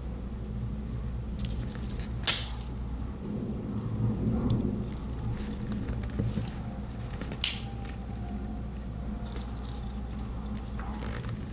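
Small metal clicks and ticks of Victorinox Alox Swiss Army knives being handled while their scissors are opened and compared, with two sharper clicks, one about two seconds in and one about seven and a half seconds in. A steady low hum runs underneath.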